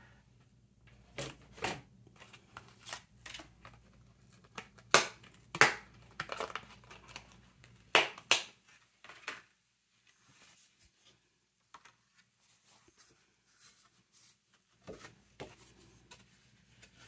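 Hands rummaging through craft cutting dies and their plastic and paper packaging: crinkling and rustling with sharp clicks and taps, busiest in the first nine seconds, then only faint scattered handling.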